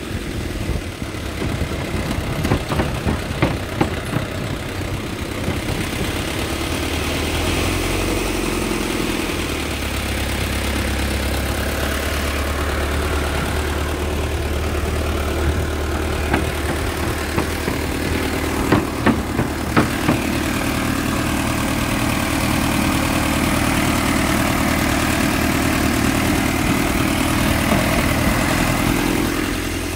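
An old truck's engine running at low speed on a rough dirt track, with the body rattling and knocking over bumps. The knocks are heaviest about two to four seconds in and again around sixteen to twenty seconds in, and the engine note changes about nine seconds in.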